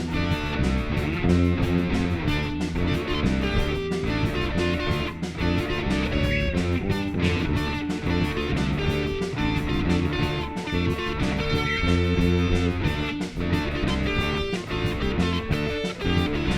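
Punk band playing an instrumental opening passage: strummed electric guitar over a steady drum beat.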